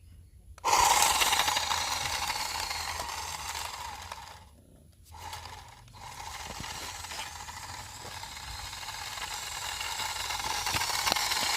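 Small toy RC car's electric motor and gears whirring at speed during a drift run. The whirr starts suddenly, dies away briefly about halfway through, then picks up again and grows louder near the end.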